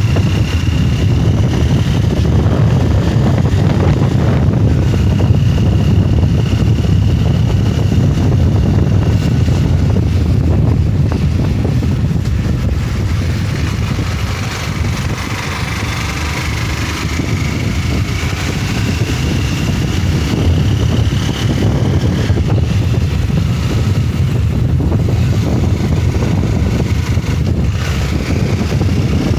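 Motorcycle riding along, its engine running under a heavy rush of wind on the microphone, dipping slightly about halfway through.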